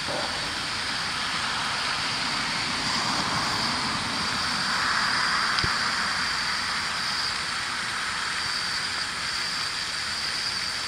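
Steady outdoor background noise at night: a constant high-pitched drone over a hiss. A wider wash of noise swells for a few seconds in the middle and then fades, like distant traffic passing.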